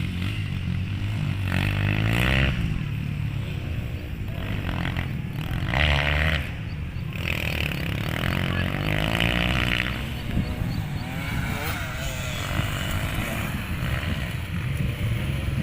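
Motocross dirt bike engines revving hard, the engine note rising and falling again and again as the riders open the throttle and shift.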